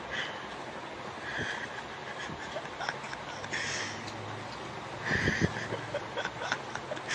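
Stifled, breathy snickering, a few short bouts, over a steady background hiss.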